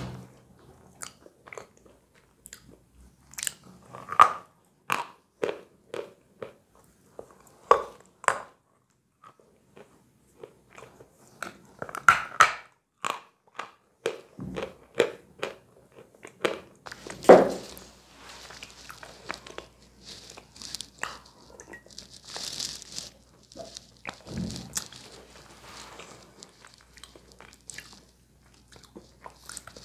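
A person biting and chewing a chunk of chalk close to a clip-on microphone: single crisp crunches at irregular intervals at first, then denser, continuous chewing in the second half.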